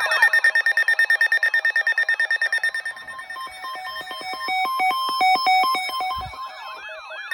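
Overlapping electronic emergency alert tones. A rapid pulsing beep, about eight a second, sounds over a steady high tone, then gives way a few seconds in to a run of stepped beeps that jump between pitches, with a brief swooping tone near the end.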